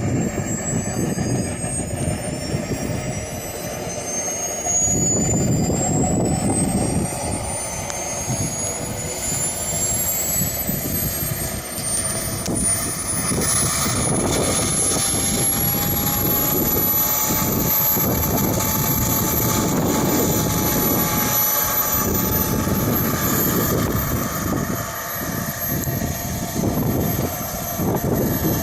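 Jet turbine engine of a hydroplane boat spooling up: a high whine rises steadily in pitch for about the first fifteen seconds, then holds steady, over a constant rushing noise.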